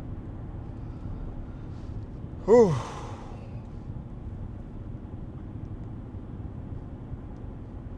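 Steady road and engine rumble inside an Audi Q7's cabin while cruising at about 40 mph. About two and a half seconds in, a person gives one short, breathy sigh that falls in pitch.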